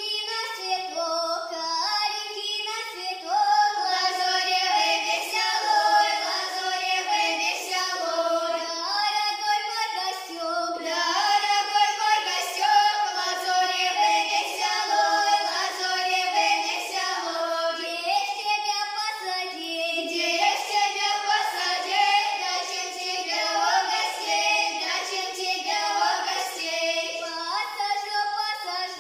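Girls' folk-song quintet singing a Russian folk song together in folk style, the voices continuous and steady in level.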